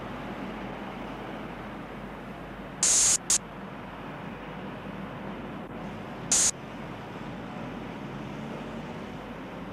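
Short, loud hisses of compressed air from a petrol-station tyre air line: two close together about three seconds in and one more about six and a half seconds in. Under them a steady noisy hum of traffic and old soundtrack hiss.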